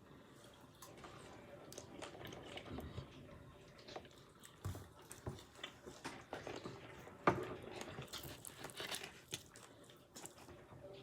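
Quiet eating sounds: chewing and biting of pizza and wings, with scattered small clicks and rustles, the sharpest about seven seconds in.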